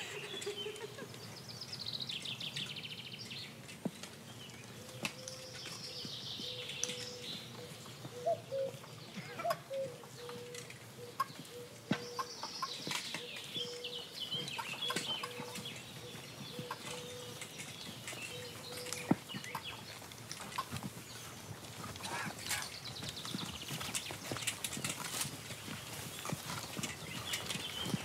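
Birds calling over an open-air background, with scattered light clicks and knocks from a column of soldiers walking with muskets and gear on a dirt path. A thin steady tone runs through the middle stretch.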